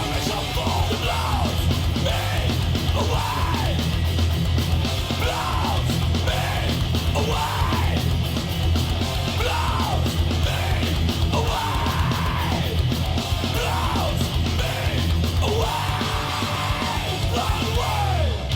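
Heavy metal music with distorted guitars, a steady bass and shouted vocals.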